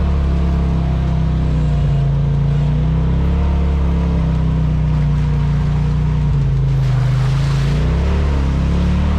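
Side-by-side UTV engine running under way, its pitch rising and falling with the throttle. About seven seconds in the revs drop and then climb again, with a brief rush of hiss.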